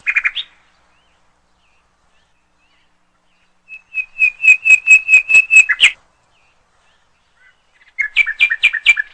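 Bird-like whistled chirps in quick series: a brief cluster, then about ten rapid chirps at one high pitch, five or so a second, and near the end a run of chirps alternating between two pitches.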